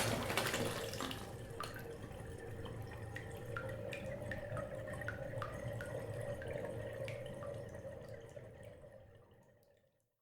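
Bathtub tap shut off: the gush of running water stops right at the start, leaving scattered drips plinking into the filled tub over a low steady hum, all fading out near the end.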